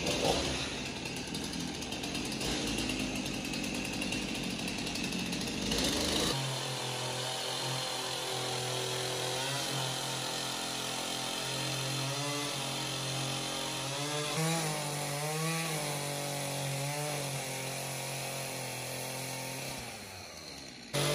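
Stihl chainsaw running under load as it cuts slots into a log. The sound changes abruptly about six seconds in, and the engine pitch sags and recovers several times in the middle as the chain bites into the wood.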